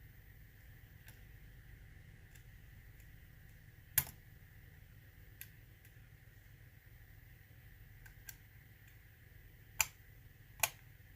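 Scattered sharp clicks and taps of lock-picking tools working in a challenge lock: a few faint ticks, one loud click about four seconds in and two more loud ones close together near the end.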